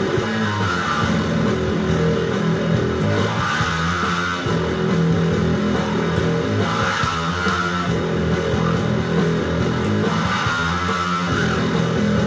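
Rock music: an instrumental passage of electric guitar and bass guitar.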